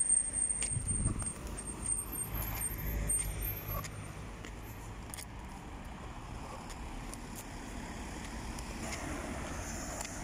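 Road traffic: cars driving past close by, loudest in the first few seconds as one goes by, then a steadier, fainter traffic noise.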